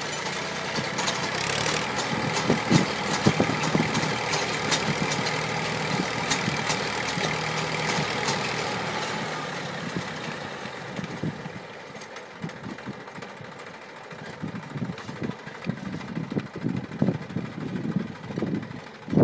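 Tractor diesel engine running steadily, driving a PTO-powered post hole digger auger that bores into dry, hard soil. About two-thirds of the way through the engine drone drops off, leaving irregular knocks and thumps.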